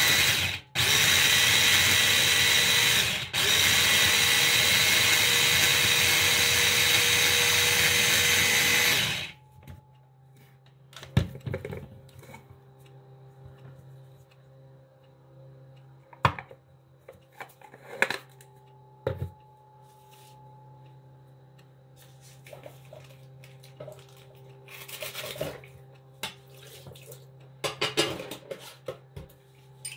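Electric mini food chopper running, chopping a coriander and garlic mix, with two short pauses in the first few seconds. It stops about nine seconds in, followed by scattered clicks and knocks of the plastic bowl and lid being handled.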